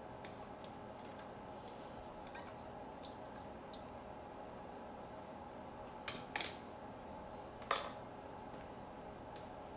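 Spatula scraping and tapping against a stainless steel mixing bowl, a string of faint light clicks over a low steady hum, then a few sharper clacks about six seconds in and the loudest near eight seconds, as the bowl and spatula are knocked and the bowl is set down on a glass tabletop.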